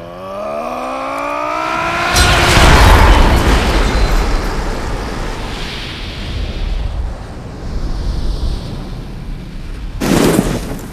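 Film battle sound effects: a tone rises in pitch for about two seconds, then a loud, deep boom rumbles away over several seconds. A sharp crashing hit comes near the end.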